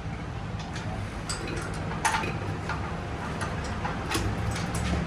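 Scattered light clicks and ticks over a steady low hum, with one sharper click about two seconds in.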